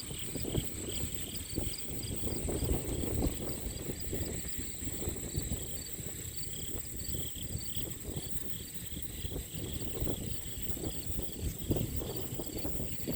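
Insects, crickets among them, trilling steadily in a high pitch with rows of short repeated chirps, over a louder, uneven low rumble with irregular gusts.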